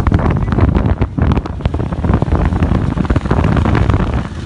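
Wind buffeting the phone's microphone while riding along in road traffic, with engine and road noise underneath.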